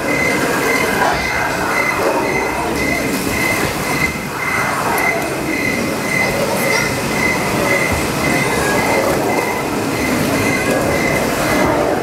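Ride train rolling through a dark ride, with a steady rumbling clatter of the cars on the track. A tone pulses about twice a second over it.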